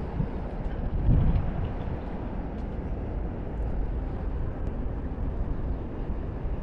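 Steady low, rumbling background noise with no distinct events.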